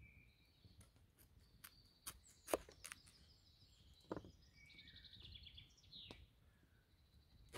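A knife knocking sharply on a wooden cutting board a few times while vegetables are sliced and moved, with small birds chirping, including a fast trill near the middle.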